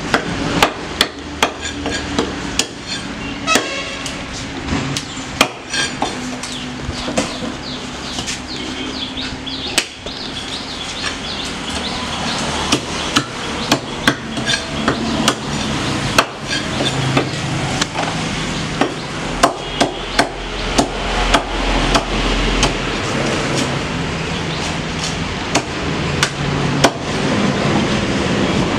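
A heavy cleaver chopping through a fish onto a wooden chopping block: a run of sharp, irregular knocks, sometimes several a second, sometimes with pauses between them.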